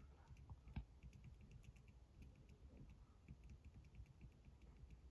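Near silence: room tone with a few faint, scattered clicks, one slightly louder about a second in.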